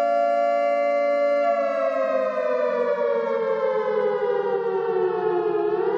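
Civil defense warning siren wailing in a two-note chord: the pitch holds, then falls slowly for about four seconds and starts rising again near the end.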